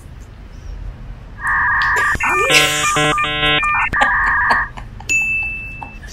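Electronic sound effect added in the edit. About a second and a half in, a steady two-note tone sounds, breaks into a short ringtone-like jingle of chiming tones, and returns briefly before stopping near five seconds.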